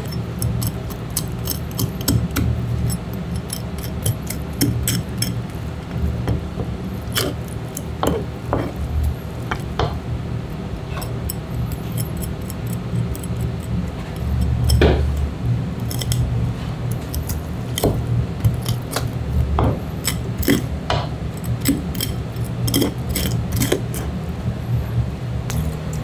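Kitchen knife work on a cutting board: scattered sharp clicks and taps of the blade and handling, over a steady low hum.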